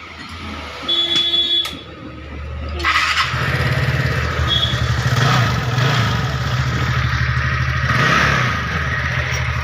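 TVS Ntorq scooter engine: a brief whirr about a second in, then the engine starts about three seconds in and runs at a steady idle. It runs free of the 'khatang khatang' knock it was repaired for.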